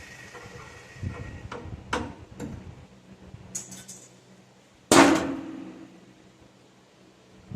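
Metal tools and parts being handled: a faint high steady hum fades out in the first second and a half, a few light knocks follow, and about five seconds in comes one loud metallic clang that rings briefly.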